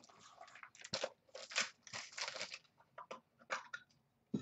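Irregular plastic rustling and crinkling as a trading card is handled and fitted into a magnetic one-touch card holder, with a sharp snap near the end as the holder closes.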